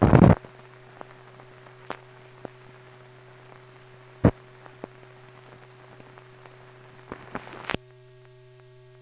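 Soundtrack of an old film print running over its countdown leader: a steady hum with scattered clicks and pops from dust and splices. A loud crackling burst comes at the start and a sharp pop about four seconds in, and the hum changes character near the end.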